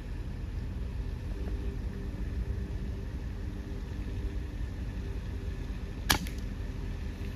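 Truck engine idling with a steady low hum, and one sharp crack about six seconds in.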